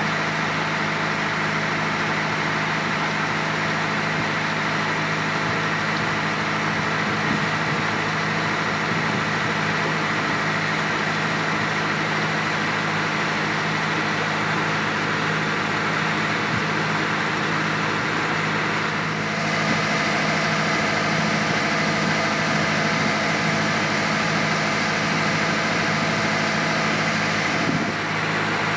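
Engine of a small passenger motor launch running steadily under way, with water rushing along the hull. The sound gets slightly louder about two-thirds of the way through and dips briefly near the end.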